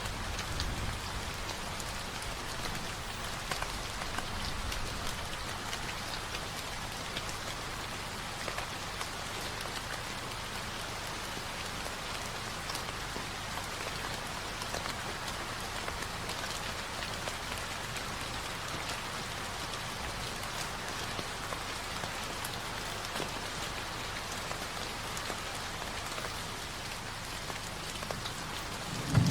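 Steady rain pattering on a surface, an even hiss of many drops. A low thunder rumble begins right at the end.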